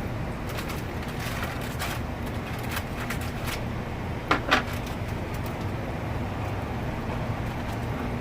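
Outdoor street ambience: a steady low traffic rumble with scattered small clicks, and a brief louder clatter about four seconds in.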